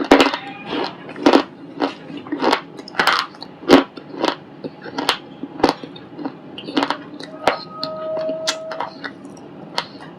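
Baked white shale stone being bitten and chewed close up: a run of sharp, dry crunches, roughly one to two a second, getting softer near the end.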